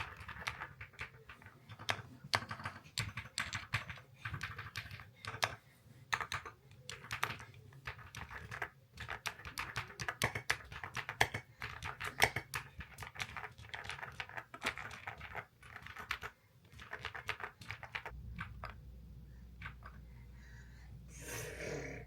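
Typing sound test on an Epomaker Galaxy70 mechanical keyboard with petal switches and freshly fitted keycaps: fast, irregular key clacks that thin out to a few presses about 18 seconds in, leaving a low steady hum.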